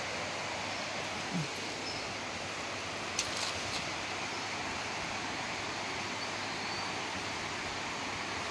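Steady rushing of a rocky river running over stones in a gorge below, with a few short clicks about three seconds in.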